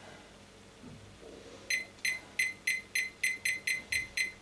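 ETI ChefAlarm probe thermometer beeping, starting about a second and a half in: a quick run of short, high, identical beeps, about four a second. Each beep marks one step of the high-temperature alarm setting as its down button lowers it.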